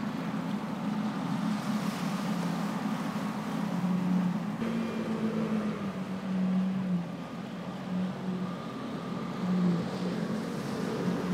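Boat engines droning steadily off-camera, their pitch shifting now and then, over a wash of wind and choppy water.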